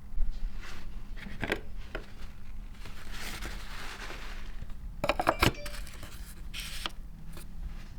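Light clinks and knocks of hard objects being handled, with a soft rushing noise swelling about three seconds in.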